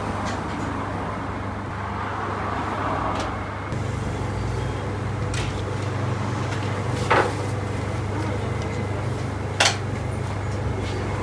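Steady low hum of a working bakery kitchen, with two sharp knocks or clinks about two and a half seconds apart in the second half.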